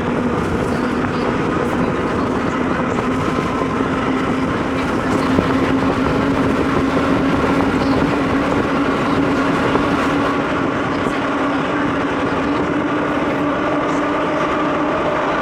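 A century-old IRT Lo-V subway car running along the line, heard from inside: a steady rumble of wheels on rail with a whine from the traction motors that drifts slowly in pitch.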